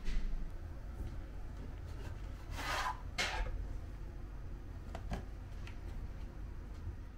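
A plastic-sleeved guide folder handled by hand: two quick rubbing swishes a little under halfway through, then a few light taps, over a low steady hum.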